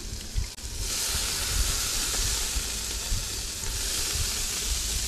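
Water flicked by hand onto a hot grill, setting off a sudden steady hiss of steam about a second in.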